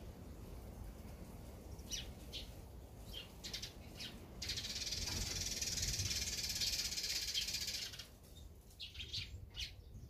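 Small songbirds calling: scattered short, high chirps, then a dense, rapid high trill lasting about three and a half seconds from around the middle, then more chirps near the end.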